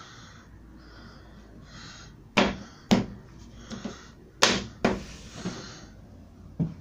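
Five sharp wooden knocks at irregular gaps as a hand handles the beech front frame on the plywood wardrobe carcass, with faint rustling between them.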